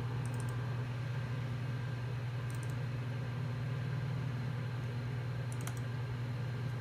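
Steady low hum of a running IBM PC XT: its power-supply fan and spinning 10MB Seagate ST-412 hard drive. Three short bursts of light clicking come just after the start, about two and a half seconds in, and near the end.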